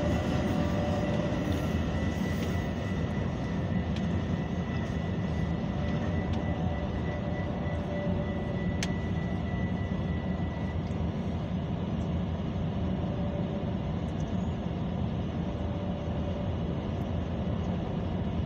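Metra double-deck commuter train running through a railroad grade crossing with a steady rumble. A crossing warning bell rings steadily and stops about ten seconds in.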